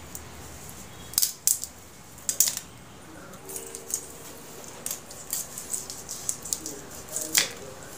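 Scissors snipping through raw fish, a series of sharp crisp cuts at uneven intervals. The loudest cuts come about a second in, near two and a half seconds, and once more near the end.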